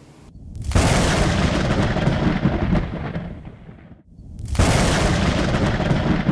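Edited-in sound effect of two deep rumbling booms. Each swells up within about half a second and dies away over about three seconds, and the second comes about four seconds after the first.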